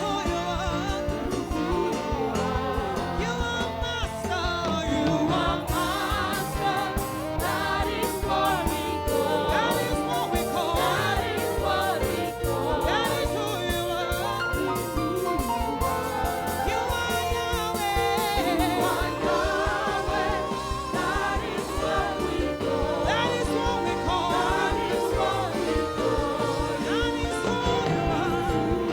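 Gospel praise-and-worship music: voices singing over a backing band. A steady drum beat comes in about six seconds in and drops away about two-thirds of the way through.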